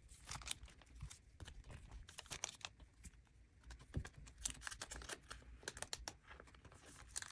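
Faint rustling and crinkling of plastic card sleeves being slid into the clear plastic pocket pages of a ring binder, with many small scattered clicks and taps.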